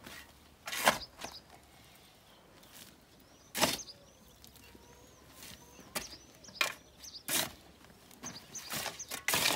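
A shovel blade striking and scraping into dry, stony soil: about eight short, sharp strikes at an uneven pace, the loudest about a second in and near the middle, several more close together near the end.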